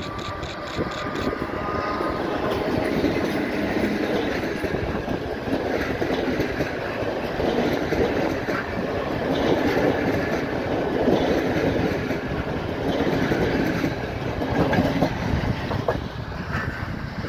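A MÁV class V43 (431) electric locomotive and its six passenger coaches pass close by as the train pulls out, wheels running and clattering on the rails. The sound swells over the first few seconds as the locomotive draws level, then stays loud while the coaches roll past.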